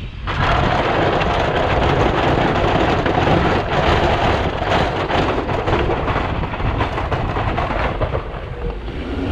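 Snowplow truck working snow on the road: a loud, steady scraping rush of the plow pushing snow. It starts abruptly just after the beginning and eases slightly near the end.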